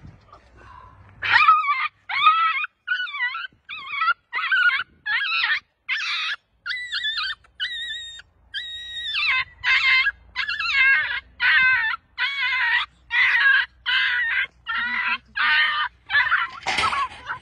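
A frightened puppy screaming and yelping over and over in high-pitched cries, about two a second, while it is being grabbed by hand; a few of the cries in the middle are longer and steadier.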